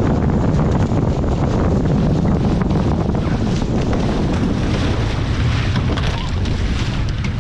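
Strong wind buffeting the microphone over water rushing and splashing along a Hobie 16 catamaran's hulls under sail, with bursts of hissing spray in the middle.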